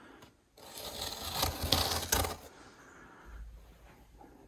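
A knife blade cutting along the packing tape and cardboard seam of a shipping box: a noisy stretch of cutting lasting about two seconds with a few sharper catches, then quieter handling of the box.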